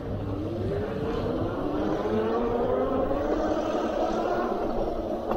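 A motor whines steadily upward in pitch as it speeds up, over low road and wind rumble.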